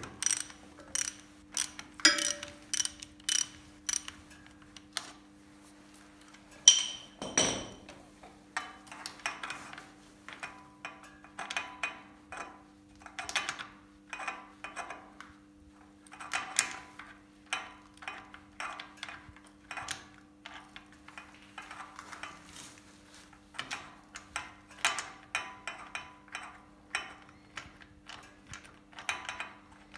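Ratchet wrench clicking in short runs, with metal tool clatter, as the spark plug is loosened and unscrewed from a Lifan 250–300 cc ATV engine; one sharper knock about seven seconds in, over a faint steady hum.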